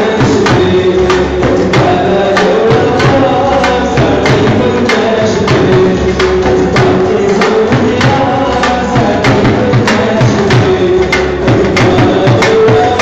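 Dhol, a two-headed barrel drum, beaten with sticks in a quick, steady rhythm, with a melody line held underneath.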